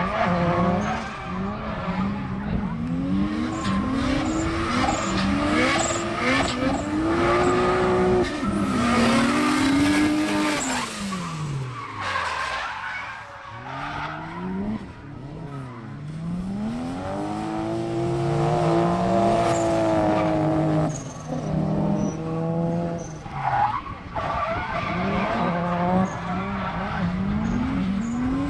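Two drift cars sliding in tandem, their engines revving up and down on and off the throttle while the tyres screech through the corners. About halfway through, the engine note drops away and then climbs again.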